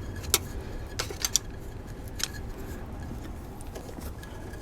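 A screwdriver clicking and scraping against the fuel pump as the rubber rim of a new vacuum hose is worked into its hole: a handful of sharp clicks in the first couple of seconds, then a few fainter ones, over a low steady background hum.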